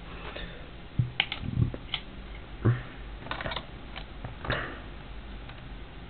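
Irregular light clicks and knocks, about a dozen unevenly spaced, as a small plastic electronics box is handled and set down, over a faint steady hum.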